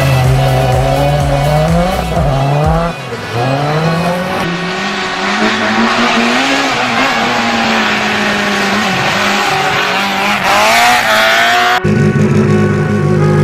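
Racing car engines revving up and down, pitch sweeping with throttle and gear changes, with tyre squeal, in several abruptly cut segments. About twelve seconds in it cuts to a steadier engine note.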